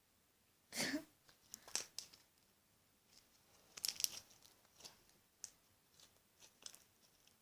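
Slime being stretched and squeezed by hand, giving scattered sticky pops and crackles, loudest about a second in and again around four seconds in.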